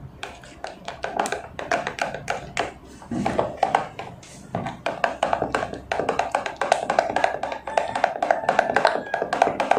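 Background music with a quick, clicking percussive beat.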